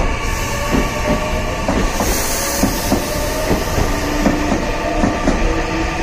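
Meitetsu electric train passing through the station's level crossing, its wheels clacking in uneven pairs over rail joints, under a steady hum of tones.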